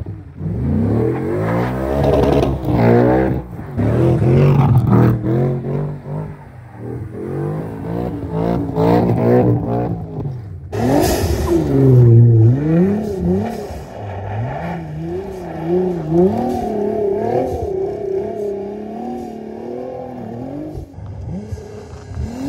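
Nissan GT-R R35's twin-turbo V6 revving up and falling back over and over as the car drifts on snow, its pitch swooping up and down several times. About halfway through the sound changes abruptly.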